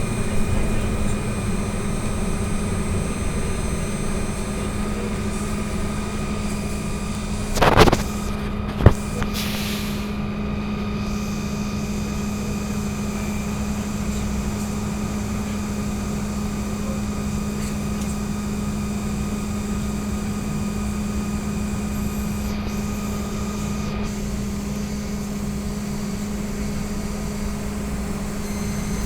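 Cabin sound of an AKSM-321 trolleybus: a steady electric hum with a constant tone. About eight seconds in there is a short burst of hiss, and a sharp click follows a second later.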